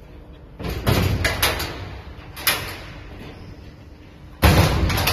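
Hinged metal electrical-cabinet doors being swung shut: a run of rattling knocks about a second in, a lighter knock, then a loud bang near the end as a door shuts.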